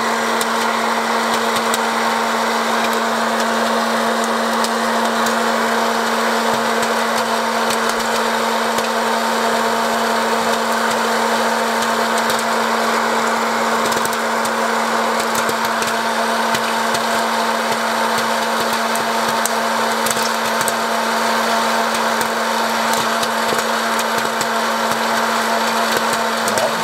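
Electric hot-air popcorn maker running: a steady motor hum and rush of blown hot air, with many light ticks of kernels popping and popcorn dropping out of the chute into a plastic bowl.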